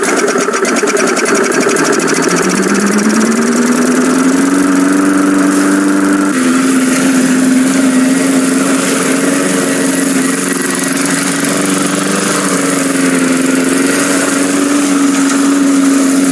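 Small gasoline lawn mower engine running; about two seconds in it speeds up, rising in pitch, then holds a steady speed.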